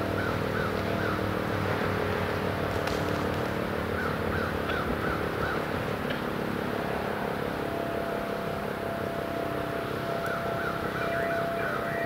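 Federal Signal Thunderbeam rotating warning siren sounding a steady alert tone during a test, with a regular pulsing as its rotor turns; a second, higher steady tone joins about eight seconds in. Short runs of quick bird chirps come three times over it.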